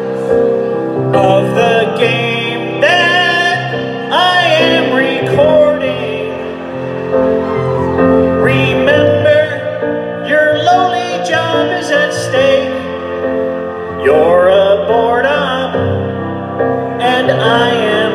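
Live band music with a man singing lead into a microphone, an electric bass and guitars accompanying him.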